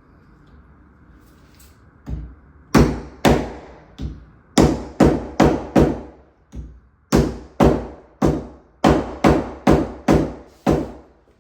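Hammering: a run of about seventeen sharp blows, roughly two a second, starting about two seconds in, each ringing briefly.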